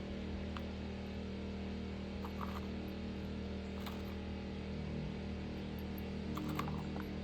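A steady low hum with a few faint, light clicks and taps over it.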